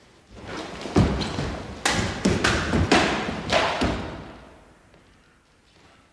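A quick flurry of katana cuts through a test-cutting target on a stand: about six sharp hits with swishes between them over some four seconds, as the cut pieces drop and thud onto the wooden floor.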